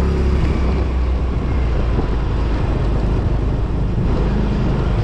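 Small Yamaha motor scooter's engine running steadily as the scooter rides along, mixed with an even rush of wind and road noise.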